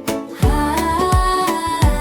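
Upbeat instrumental backing music for a children's song: a steady electronic kick drum under a sustained, sliding melody line.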